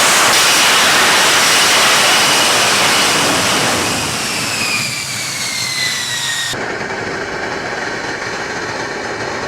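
F-35A Lightning II's single Pratt & Whitney F135 afterburning turbofan running loud as the jet flies past, its whine falling in pitch as it goes by. About two-thirds of the way through the sound cuts suddenly to a quieter, duller steady jet rumble.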